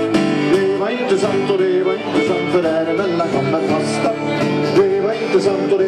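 Acoustic guitar strummed with a violin playing a wavering melody over it: a lively folk-country tune played live.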